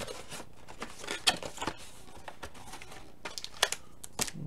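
A cardboard trading-card box being opened by hand: its lid and sleeve slide and rub, with a few sharp taps and clicks and light rustling of card stock.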